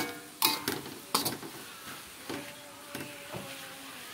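Metal spatula scraping and knocking against a metal wok while stirring pounded cassava leaves: a quick run of sharp scrapes in the first second and a half, then a few softer ones.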